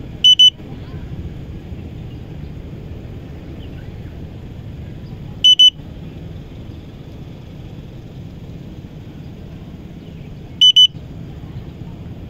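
Fimi X8 Mini drone remote controller sounding a warning alarm: a loud, high double beep repeated three times about five seconds apart, over a steady low rumble. It is typical of the controller's strong-wind (gale) warning.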